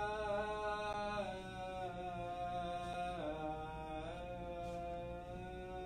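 An Orthodox priest chanting the closing words of the Gospel reading as one male voice, drawn out in long held notes that step in pitch a few times.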